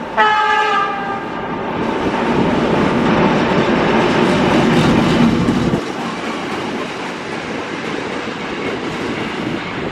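ChME3 diesel shunting locomotive and a gondola wagon passing close: a single horn blast about a second and a half long at the start, then engine and wheel noise with clickety-clack over the rail joints, loudest in the middle and dropping off suddenly after about six seconds as the wagon goes by.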